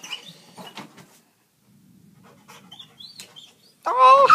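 Dog panting and scuffling while working at an inflated exercise ball, with a loud wavering squeal near the end.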